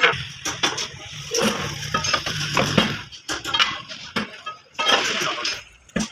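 Metal clinking and clanking: many sharp, irregular strikes of steel tools and parts being handled.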